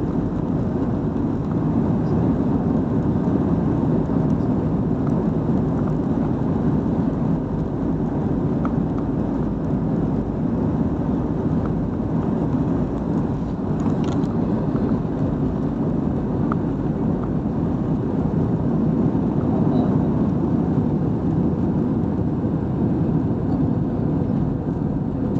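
Airplane engines at takeoff, a steady low rumbling roar that holds an even level throughout.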